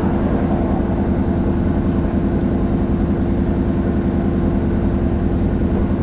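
ATV engine idling steadily while the machine stands still, with one constant tone and no change in speed.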